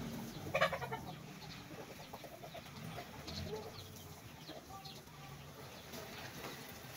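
Chickens clucking, with one louder call about half a second in and smaller scattered clucks after it.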